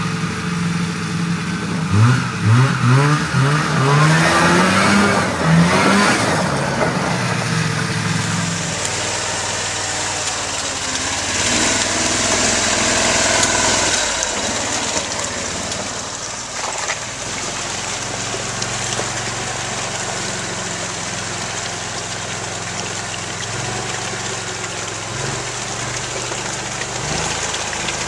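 Small amphibious ATV engines: revving in several quick rises and falls a couple of seconds in, then running more steadily as the vehicles churn through mud and shallow water.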